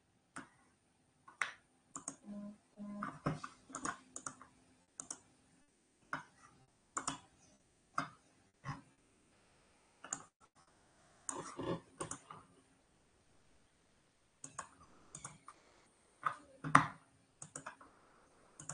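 Irregular clicks of a computer mouse and keyboard, roughly one or two a second, with a short quiet gap about two-thirds of the way through.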